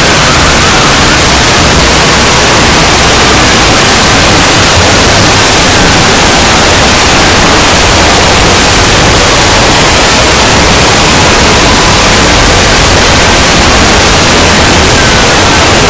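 Extremely loud, heavily distorted noise like static, filling the whole range without a break, with faint gliding tones buried in it. It is typical of an 'earrape' effect-stacked sound edit.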